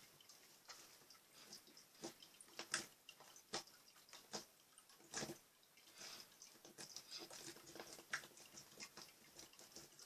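Slime being squished, its trapped air bubbles popping in irregular sharp pops and small crackles, the loudest few between about three and five seconds in.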